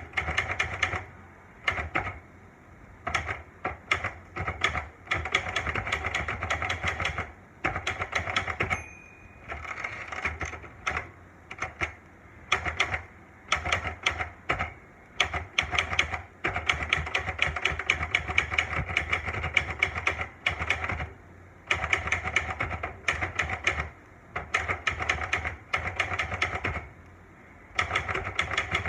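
Olivetti Lettera 92 manual portable typewriter being typed on: fast runs of key strikes in bursts with short pauses, and one brief ring, like the line-end bell, about nine seconds in.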